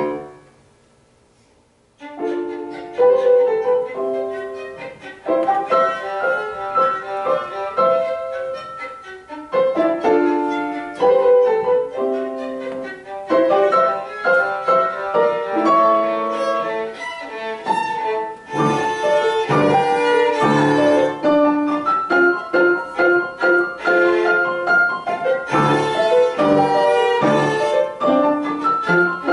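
Violin and piano playing a classical romantic piece together. It opens with about two seconds of near silence, a pause in the music, then both instruments come back in with sustained bowed violin notes over piano chords.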